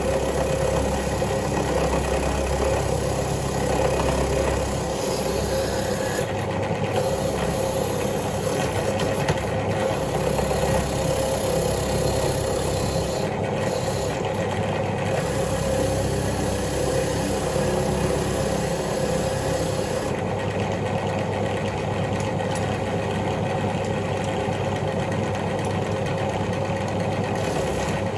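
A power tool's motor running steadily while a rusty bolt is cleaned of rust, the scraping sound above the hum changing in strength a few times.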